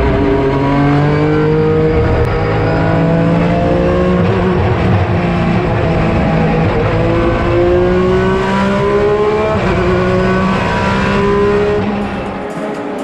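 Porsche 996 GT3 RSR's naturally aspirated flat-six race engine accelerating hard through several upshifts, each gear a rising pitch that drops back at the shift. Near the end the engine note falls away.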